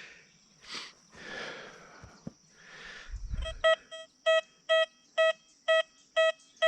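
Metal detector sounding a repeated target tone, short steady beeps about twice a second, as the coil is swept back and forth over a US clad quarter. Before the beeps start there is faint rustling and a low thump a little past halfway.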